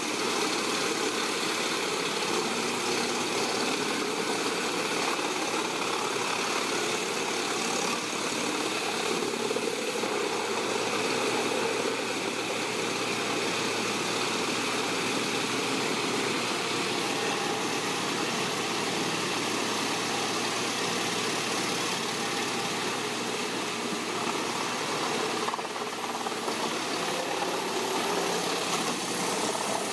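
Caterpillar diesel engine of a Komptech Chippo 8010C wood chipper running steadily at an even pitch.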